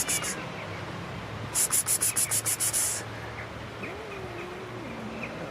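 High-pitched insect chirping in fast, even pulse trains, one at the start and a longer one from about a second and a half to three seconds in. Near the end a cat gives a low, wavering growl.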